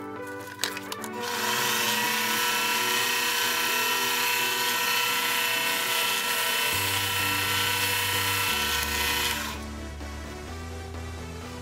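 Chinese mini lathe spinning up about a second in and running steadily with a whine, with the hiss of abrasive cloth held against the spinning brass bolt to polish it; the lathe stops near the end.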